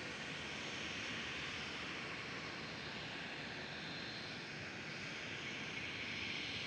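Southwest Airlines Boeing 737 arriving, its jet engines giving a steady rushing noise with a faint high whine about midway.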